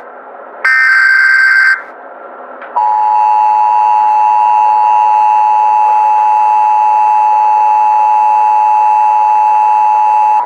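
Emergency Alert System tones. A burst of SAME header data tones lasting about a second ends about two seconds in. About a second later the steady two-tone EAS attention signal starts and holds at a constant pitch for about eight seconds.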